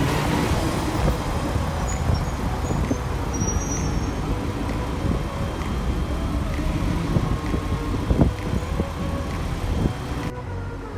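Heuliez GX317 natural-gas city bus with a Voith automatic gearbox, its engine running as it moves past close by and away along the street.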